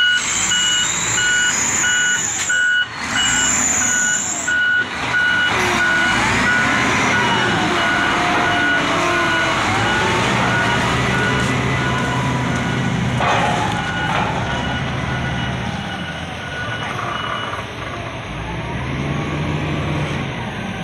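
Forklift engine running as it is driven onto the trailer ramp, with a reversing alarm beeping rapidly and evenly until it stops about three-quarters of the way through.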